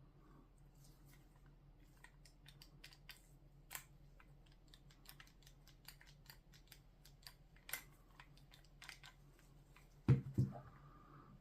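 Scattered light clicks and ticks of small items being handled, with a heavier double knock about ten seconds in, over a faint steady low hum.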